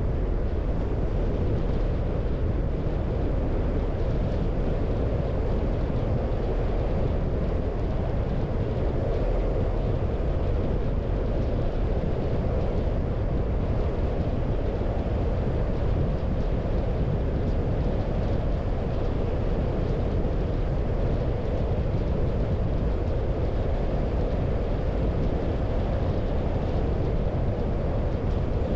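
Steady road noise of a car being driven: an even rumble of tyres and wind that holds constant throughout.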